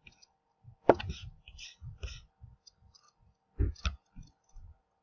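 Clicks of a laptop's pointer button: one sharp click about a second in and a close pair of clicks near the end, with faint soft knocks and rustles between.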